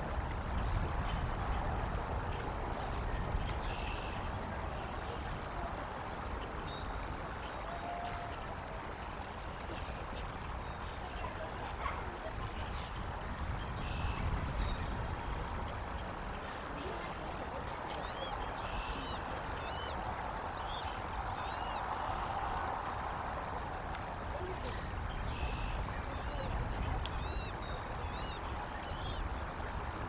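Steady outdoor rumble of wind or distant traffic, with small birds chirping in quick series of short arched notes, mostly in the second half.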